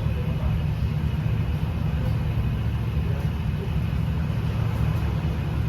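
SYM Mii 110 scooter's single-cylinder four-stroke engine idling steadily.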